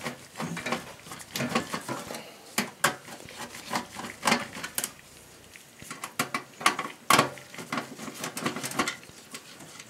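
Irregular metallic clicks and clinks from a Phillips screwdriver and screws being worked on the motherboard inside a steel desktop PC case.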